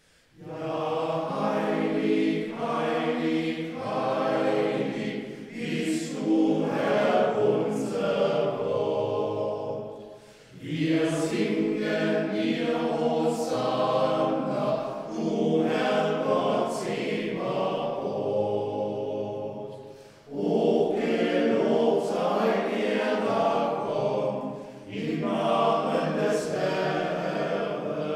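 The small choir (schola) of a Benedictine monastery singing a sacred piece in several voices, in long phrases with short breaths about ten, twenty and twenty-five seconds in.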